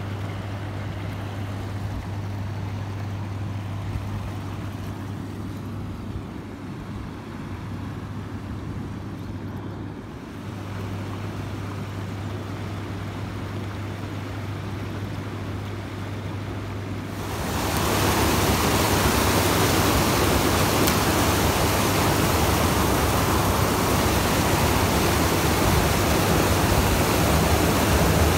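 A quiet stretch with a steady low hum. About two-thirds of the way in, it gives way abruptly to the loud, even rushing of churning white river water.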